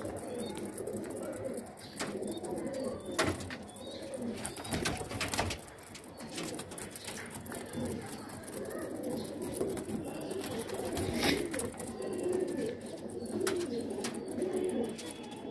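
A flock of red Qumri fancy pigeons cooing continuously in overlapping low, warbling calls, with a few sharp taps.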